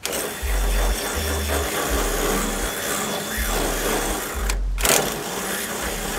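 Hand drill boring a hole through the metal wall of a gas grill's firebox, the motor running steadily under load, with a short break about four and a half seconds in.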